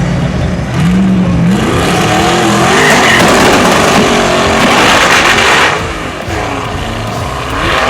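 Race car engine revving hard under acceleration, its pitch climbing, with a loud rushing noise from about two seconds in until near six seconds. The engine note drops, then rises again near the end.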